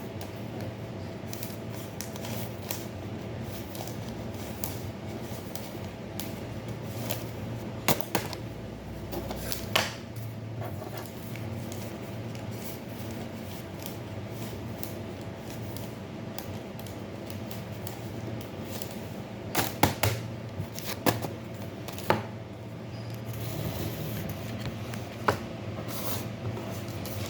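Occasional sharp clicks and taps of small objects being handled, a few bunched together about two-thirds through, over a steady low hum.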